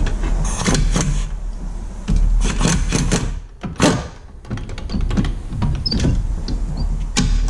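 Impact wrench hammering in several short bursts with pauses between them, working a 17 mm bolt loose through a swivel socket.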